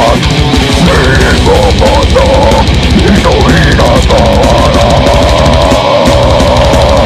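Heavy metal band playing live: distorted, aggressive music over fast, dense drumming, with a long held note from about halfway through.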